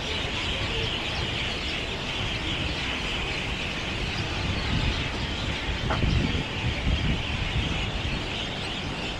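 Dense chorus of many birds chirping at once, with a low rumble underneath.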